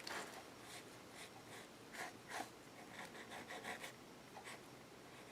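Faint, irregular scratchy rubbing strokes, several a second: black StazOn ink being worked along the cut cardboard edge of a board-book window.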